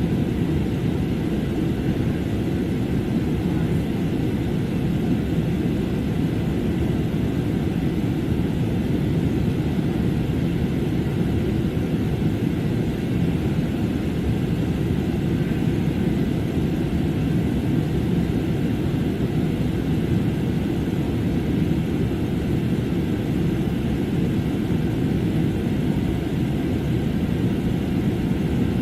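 Steady airliner cabin noise in flight: a constant low rumble of jet engines and airflow past the fuselage, with no changes.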